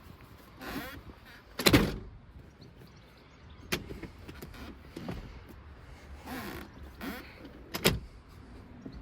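A handful of sharp knocks and clicks at irregular spacing, the loudest about two seconds in and again near the end, with faint rustling of handling between them.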